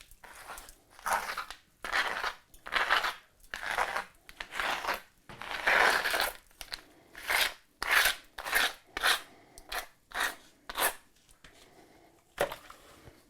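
A steel mason's trowel scraping through wet, gritty mortar in a series of short strokes, one to two a second, about a dozen in all. One last stroke comes after a short pause near the end.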